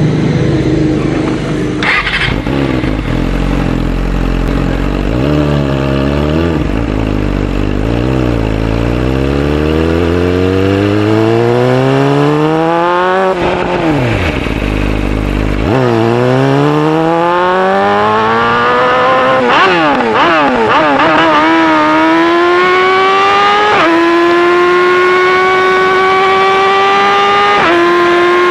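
A 2018 Yamaha R6's inline-four with an Akrapovic full exhaust system, revving hard in long rising sweeps. The pitch drops steeply once about halfway, then rises again to a high wail that climbs in small steps toward the end.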